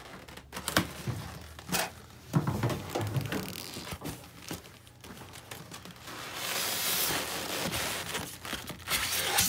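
Cardboard box flaps being pulled open and handled, with crinkling and several sharp knocks in the first few seconds. Then a few seconds of steady scraping as the polystyrene foam cooler inside the box is handled against the cardboard, ending in a louder knock.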